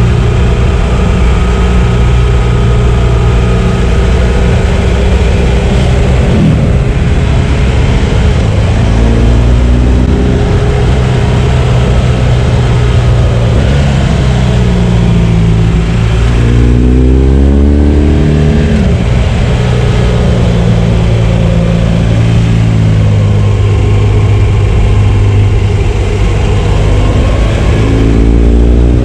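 2016 BMW R1200 GS boxer-twin motorcycle engine running under way, with its pitch rising as it accelerates a few times, notably about half way through and near the end.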